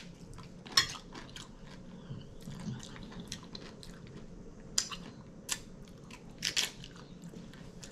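Close-up biting and chewing of a tortilla chip loaded with taco-salad toppings. There is a loud crunch about a second in, a few more sharp crunches later on, and steady chewing between them.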